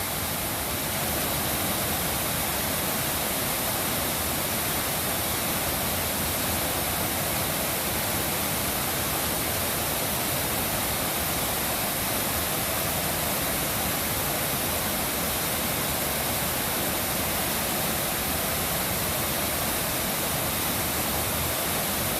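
Waterfall splashing steadily, a constant rushing roar of falling water.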